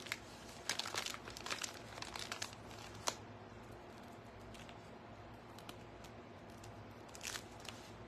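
Plastic piping bag of faux icing crinkling and rustling in the hands as it is squeezed, with scattered faint clicks.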